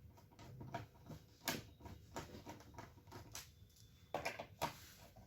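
Faint, scattered clicks and taps of a small screwdriver turning screws out of a laptop's bottom cover, with a few sharper knocks about a second and a half in and again near the end.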